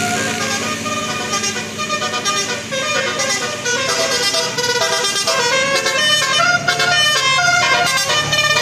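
Bus telolet horn of the Basuri type, a multi-note musical horn playing a fast melody of short horn notes that change pitch several times a second.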